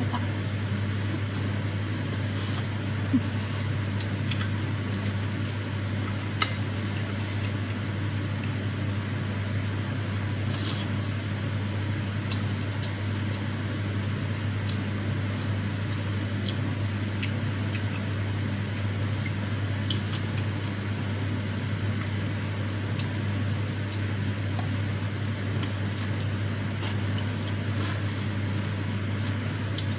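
Eating sounds: chewing and sipping spicy seblak soup with enoki mushrooms, with scattered clicks of a wooden fork and spoon against a glass bowl, two sharper ones about 3 and 6 seconds in. A steady low hum runs underneath throughout.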